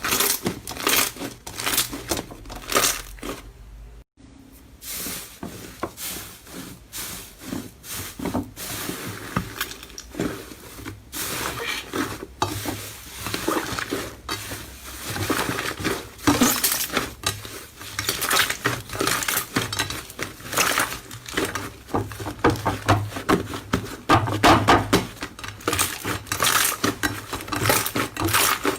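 Slime being squeezed, poked and pressed by hand, giving a dense, irregular run of crackles, clicks and small pops. The sound breaks off briefly about four seconds in.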